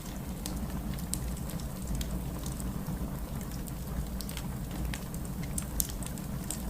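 Steady rain with a low rumble, mixed with scattered sharp crackles and pops from a wood fire, one louder pop near the end.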